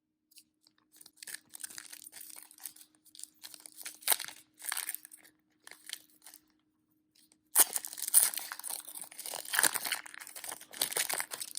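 A trading card pack's wrapper being torn open and crinkled in the hands: soft, scattered crackling at first, turning into louder, continuous crinkling about two-thirds of the way in.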